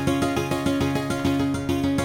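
Background music with quick, evenly repeated notes and a steady beat.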